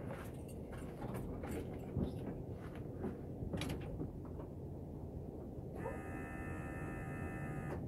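Footsteps crunching on snow and ice, then about six seconds in a high, steady creak lasting about two seconds: the Chevrolet Silverado's driver door swinging open on a frozen hinge, just before the cold start.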